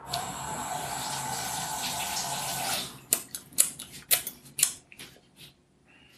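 Kitchen tap running for about three seconds and shut off abruptly, followed by several sharp clicks and knocks of kitchen things being handled.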